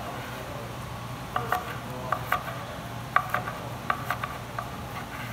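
Chef's knife chopping a Roma tomato on a wooden cutting board: about a dozen irregular knocks of the blade on the board, starting about a second and a half in. Under it, a steady sizzle of mango slices grilling.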